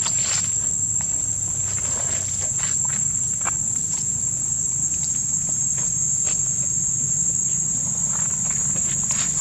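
Steady high-pitched insect drone, unbroken throughout, over a low steady hum, with scattered faint clicks and rustles.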